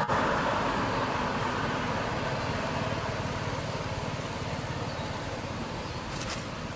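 Traffic noise from a vehicle passing on a nearby road, a steady rumble that fades away gradually.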